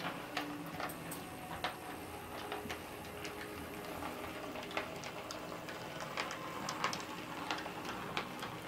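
Sn2½ model steam locomotive running on the layout's track: a steady mechanical whir with many irregular small clicks as its wheels pass over the rail joints and points.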